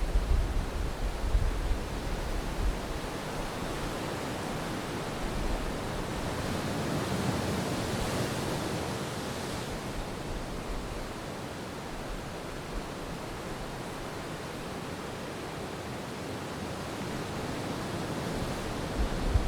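Gentle ocean waves washing against the shore as a steady hiss, with one wave swelling louder about a third of the way in. A low rumble, like wind on the microphone, comes at the start and again near the end.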